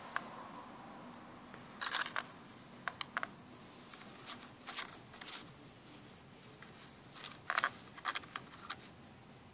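Clicks and crackles of a clear plastic blister pack being handled, the lure set into its tray, in a few short clusters of sharp clicks.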